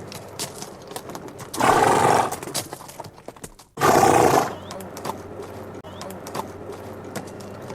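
Horse sound effect: two loud horse neighs, each under a second long and about two seconds apart, with light hoof clicks around them.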